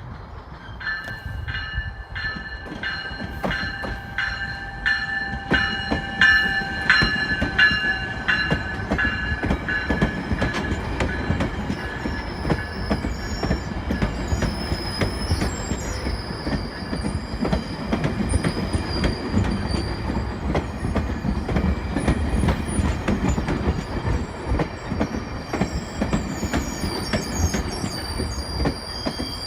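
GO Transit commuter train moving through the station: a bell rings in steady, evenly spaced strokes for the first several seconds, then rail wheels rumble and squeal on the track.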